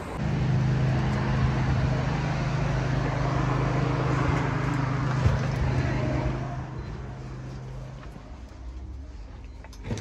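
A motor vehicle's engine running close by with a steady hum, fading away after about six seconds.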